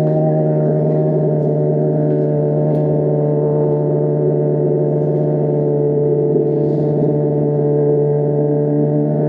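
Honda CBR600RR's inline-four engine running at a steady speed, holding one even, unchanging note.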